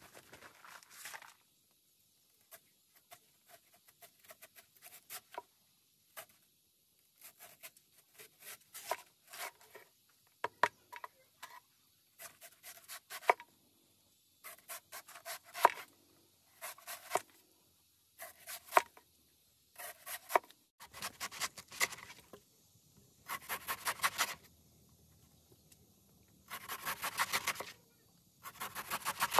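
A heavy chopping knife cutting a banana stem on a wooden board: short cuts and scrapes in irregular bursts as outer layers are trimmed off, turning into longer, quicker runs of strokes in the last third as the stem is sliced into rounds.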